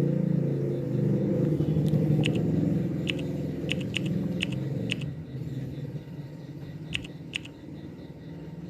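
A low rumble that is loudest for the first few seconds and then fades, with a scattering of short, light clicks.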